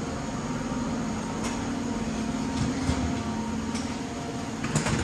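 Steady machine hum with a few light clicks.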